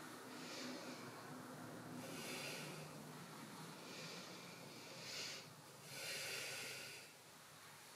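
A woman's slow, audible breathing, faint and even, inhales and exhales in turn, paced to yoga shoulder rotations.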